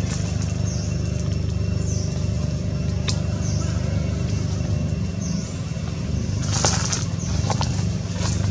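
Steady low engine hum of a running motor vehicle. Over it comes a short high chirp, repeated every second or two, with a sharp click about three seconds in and a brief rustle about six and a half seconds in.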